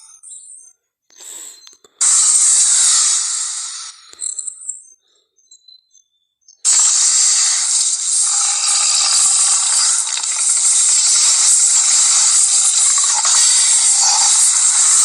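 Film monster sound effects: a short harsh hissing roar about two seconds in that fades, then after a near-quiet gap a long harsh hissing roar starting about seven seconds in.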